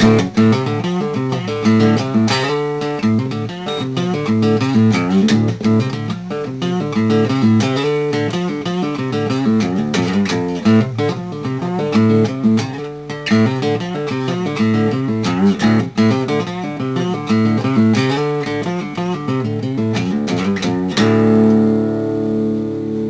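Background music on guitar, quick plucked notes in a steady rhythm, ending near the end on a held chord that rings out and fades.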